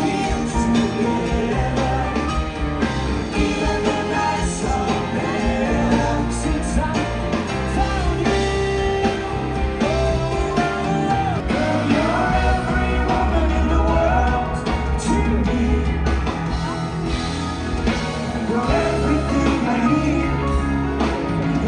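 Music with singing: a rock-style song with a lead vocal, guitar and a heavy bass line.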